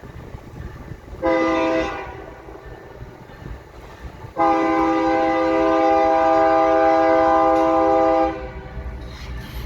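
Locomotive air horn sounding a chord of several tones: one short blast about a second in, then one long blast of about four seconds, over the low rumble of the train.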